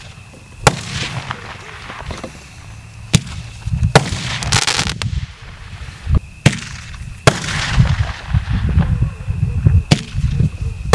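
Joker Zvon-Perezvon 0.7-inch Roman candle firing: about six sharp pops spaced a second or more apart, each followed by the hiss of a burning star. There is a longer crackling hiss about four to five seconds in.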